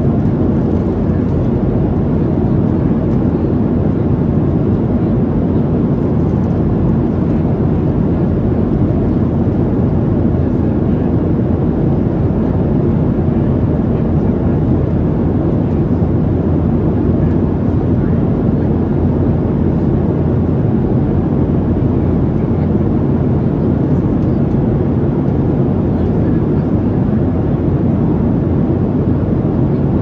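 Steady cabin noise of a Boeing 737-700 heard from a passenger seat: its CFM56-7B jet engines and the airflow over the fuselage make an even, low rumble with no change in pitch or level.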